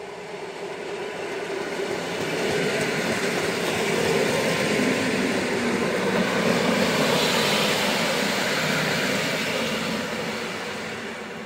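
Polregio EN57AL electric multiple unit passing close by, its wheels and cars rumbling on the rails. The sound swells over the first few seconds, peaks past the middle and fades near the end.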